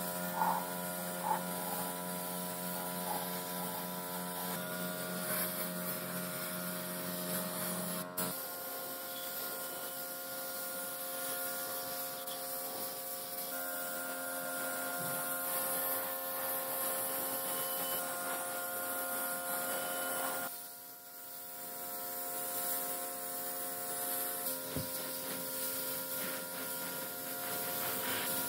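Paint spray gun in use on motorcycle parts: a steady electric hum with a hiss of spray over it. The hum's tone changes abruptly about eight seconds in, and the sound dips briefly around twenty seconds in.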